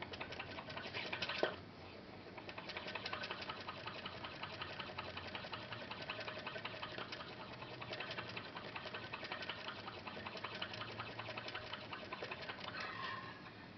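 Homemade putt-putt (pop-pop) boat motor, made from an aluminium arrow shaft with a tiny water balloon on its end, running in a pan of water. It gives a fast, even train of swishing pulses like a tiny motor as steam forms and condenses in the heated tube. A louder, brief burst comes about a second and a half in.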